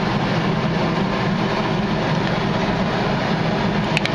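A steady, loud hum runs throughout. A knife and fork clink against a plate twice, close together, near the end.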